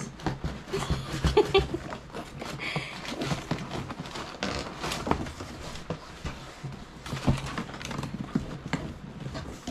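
Cardboard knocking and scraping and tissue paper crinkling as a display box is pulled out of a tight shipping carton, mixed with a woman's laughter in the first few seconds.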